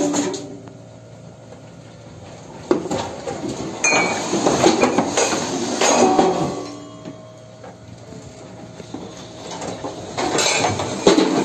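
Loose objects sliding and clattering across a ship's cabin floor as the ship rolls in heavy seas. The clatter comes in bursts, about three seconds in and again near the end, with quieter stretches between.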